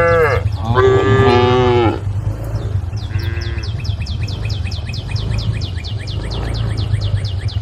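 Cows mooing: two loud moos in the first two seconds and a fainter one about three seconds in. A fast, even, high chirping of about eight pulses a second follows, over a steady low rumble.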